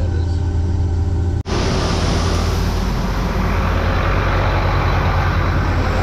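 Case IH 2144 combine harvester running steadily, heard as a low, even engine hum. About a second and a half in, the sound cuts abruptly to a louder, rougher rush of engine and machinery noise.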